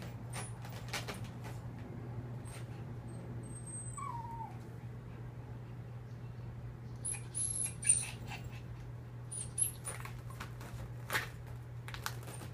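Chihuahua scratching and pawing at the fabric and zippers of a dog stroller: scattered scratches and rustles, loudest around eight seconds in, with a brief falling whimper about four seconds in. A steady low hum runs underneath.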